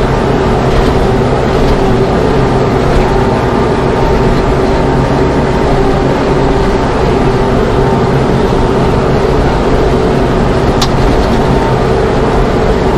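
Mahindra tractor's diesel engine running steadily under load, pulling a chisel plow through rough ground, heard from inside the closed cab. One brief sharp click near the end.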